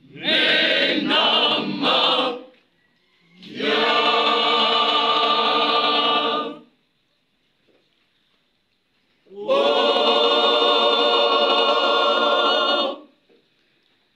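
Church congregation singing a hymn as a choir without instruments. There are three long sung phrases, each a few seconds long, separated by short silences.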